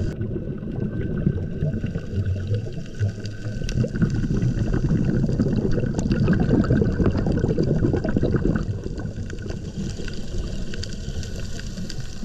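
Underwater recording through a camera housing: a muffled, steady gurgling rumble with fine crackles, the sound of a scuba diver's exhaled bubbles and the surrounding water.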